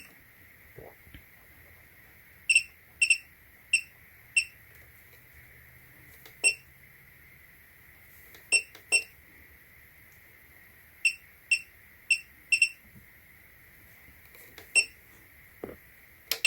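Bench power supply's beeper giving about fifteen short, high-pitched beeps in irregular bunches as its current setting is stepped up, over a faint steady high-pitched tone.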